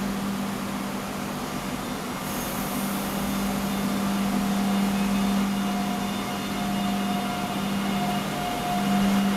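Electric multiple-unit train humming steadily as it starts to pull away from the platform, with a higher whine joining in about six seconds in.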